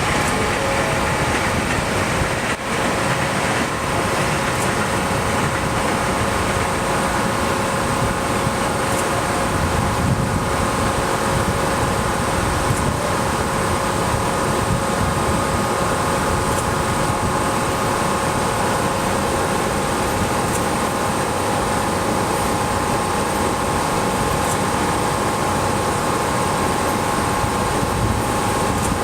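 Parked ex-Seibu 301 series electric train's onboard equipment running steadily: a constant hum and whine of several fixed pitches over fan-like noise.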